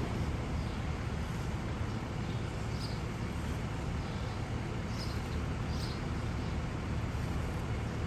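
Heavy truck diesel engine running with a steady low rumble, with a few faint, short high chirps over it.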